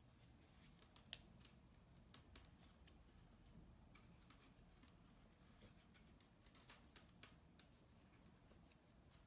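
Faint, irregular light clicks of metal knitting needles tapping against each other while purling, over quiet room tone.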